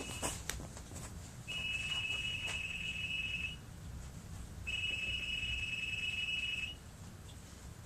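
Electronic alarm beep sounding twice, a steady high tone about two seconds long each time, with a few light handling clicks near the start.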